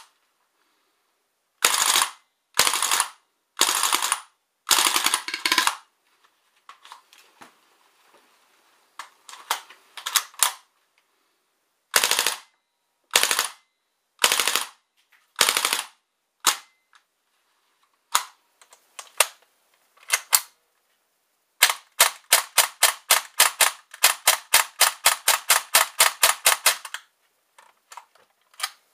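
KWC Mini UZI CO2 airsoft submachine gun firing on full auto: several short bursts of rapid shots, a few single shots, and a long burst of about five seconds near the end.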